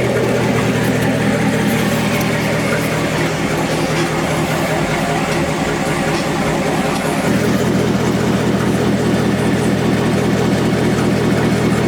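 Corvette V8 idling through a newly installed X-pipe exhaust, freaking loud with a snarl, run to check the new pipe for leaks. Its low note changes slightly about seven seconds in.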